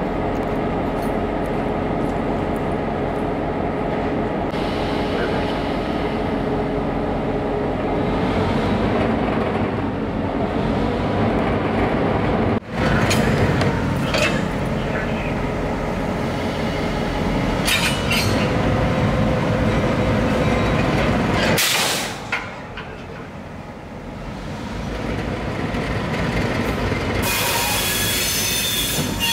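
Diesel locomotive engine idling with a steady rumble beside a boxcar, with a few sharp metallic clanks and a short burst of hiss about three-quarters of the way in. Near the end, steel wheels squeal shrilly against the rails.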